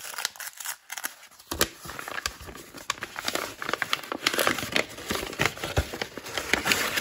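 Brown kraft paper wrapping being torn open and crumpled by hand: dense crinkling and crackling with many sharp crackles, fainter for the first second and a half and louder after.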